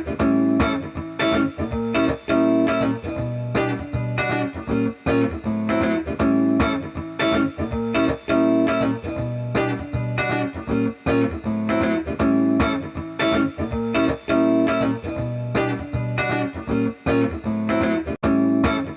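Background music led by plucked guitar, with steady rhythmic note attacks throughout.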